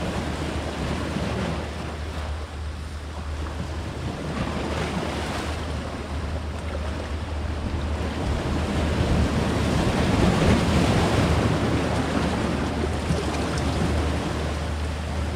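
Sea waves washing and breaking on rocks, with wind buffeting the microphone as a steady low rumble. The surf swells louder about nine seconds in and eases again a few seconds later.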